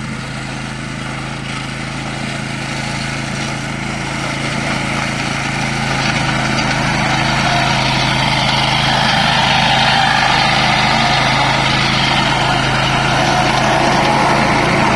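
13-horsepower Tosaka petrol engine of a remote-controlled lawn mower running steadily. It grows louder over the first ten seconds or so, then holds steady.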